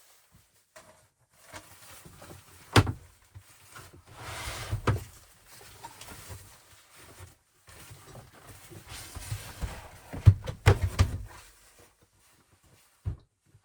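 Handling noises: rustling and scraping with several sharp knocks and thuds, the loudest about three seconds in and again near ten and eleven seconds.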